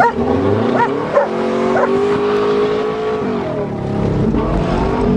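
Subaru Legacy's boxer engine revving under acceleration. It climbs in pitch, holds steady and falls away as the throttle is lifted, then picks up again near the end. A dog yips several times in the first couple of seconds.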